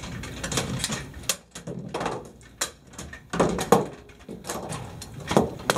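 Irregular metal clacks and knocks as an M240 machine gun is hurriedly stripped by hand, its parts slid apart and set down on a table.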